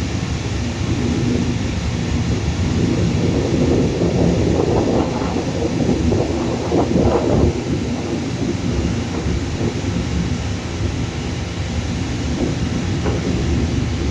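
Jet airliner engines: a steady low rumble that grows louder around the middle and eases off again.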